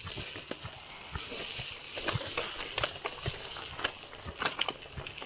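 Aluminium foil crinkling as a foil cooking packet is pressed and folded shut by hand, giving a run of irregular crackles and sharp clicks.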